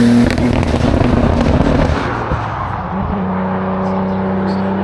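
A race car engine held at high revs is cut just after the start, and the exhaust crackles and pops on the overrun for about two and a half seconds. A steady, lower engine note then takes over from about three seconds in.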